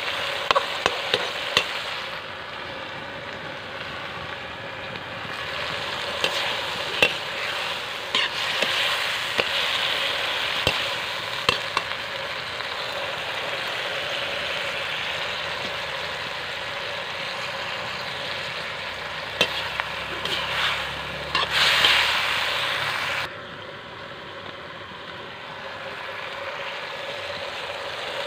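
Fish, potato and tomato frying in a metal wok, a steady sizzle, stirred with sharp scrapes and taps of the utensil against the pan. About three-quarters of the way through it suddenly drops to a quieter sizzle.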